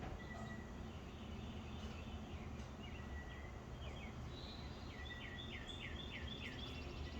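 Songbirds chirping, with scattered short calls and, about five seconds in, a quick run of about seven falling notes. A steady low rumble sits underneath.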